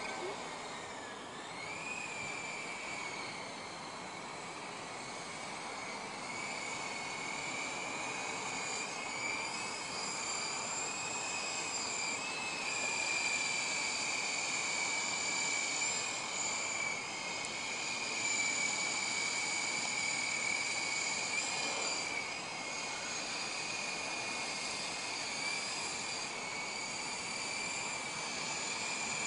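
Syma S33G remote-control helicopter's electric motors and rotors giving a steady high-pitched whine that wavers a little in pitch as the throttle changes, over a steady hiss.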